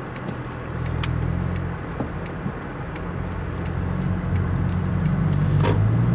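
Turn-signal indicator ticking about three times a second inside the car's cabin, over the low drone of a Honda Fit Hybrid's four-cylinder engine with a Kakimoto aftermarket muffler. The engine note swells from about a second in and rises further near the end as the car pulls away through the junction.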